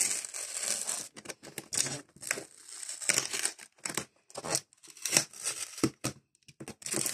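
Clear adhesive tape being peeled and ripped off a cardboard trading-card box, with plastic film crinkling, in a string of short, irregular rips.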